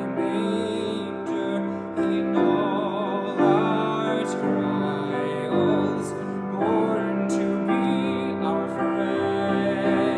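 A classically trained solo voice singing a Christmas carol with vibrato on long held notes, accompanied by piano.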